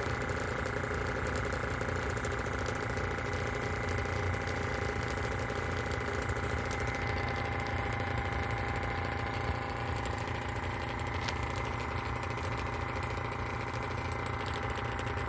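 Vacuum pump running steadily, a constant motor hum with a fast, even chatter, drawing methylamine gas off under vacuum.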